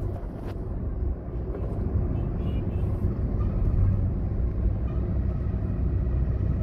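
Steady low rumble of a vehicle driving along a road: engine and tyre noise heard from the moving vehicle.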